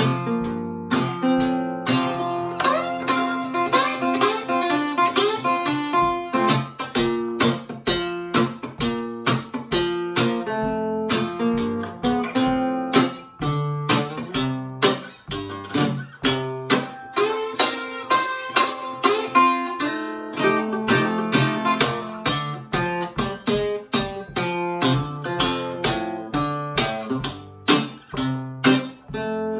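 Solo acoustic guitar, fingerpicked with steady bass notes under melody notes, some of them played with a glass slide, in an instrumental break of a slow gospel tune.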